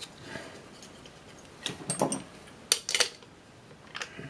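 Small metal parts clicking and clinking under hand as a nut is refitted onto the airspeed transducer, in short clusters about two and three seconds in and once more near the end.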